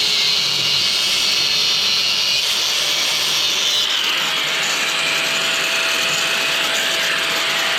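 Angle grinder working on welded sheet-steel repair panels, running steadily. It makes a loud, even hiss, and a steady tone joins in about halfway through.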